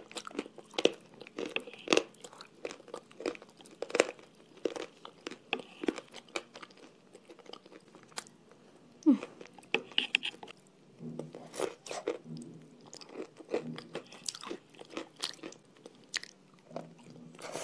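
Close-miked chewing of a creamy, sticky white clay paste with crunchy chalk pieces: irregular crunches and sharp wet mouth clicks.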